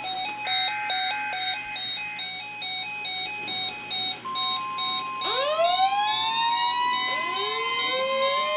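Electronic emergency-alert test tones: a rapid two-pitch warble alternating several times a second, then a steady high tone from about four seconds in, joined about a second later by a rising siren wail, with a second wail rising near the end.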